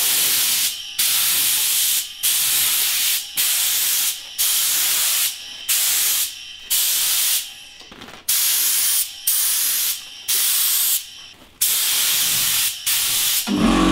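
Gravity-feed air spray gun spraying paint onto a motorcycle helmet, hissing in about a dozen bursts of roughly a second each with short breaks between them as the trigger is pulled and released.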